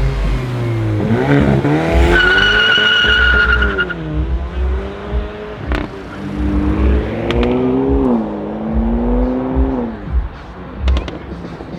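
Hyundai i30 N's turbocharged 2.0-litre four-cylinder revving up and dropping back several times under hard acceleration. A tyre squeals for about two seconds, starting about two seconds in, as the wheels spin. A few sharp exhaust cracks come near the middle and again near the end.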